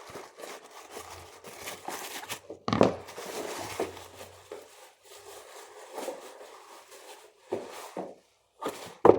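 Plastic packaging crinkling and rustling as it is handled and opened, with a sharp knock about three seconds in and another near the end.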